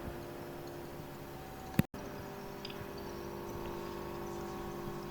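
Low hiss and steady electrical hum from a doorbell camera's microphone, broken by a single sharp click and a split-second dropout about two seconds in.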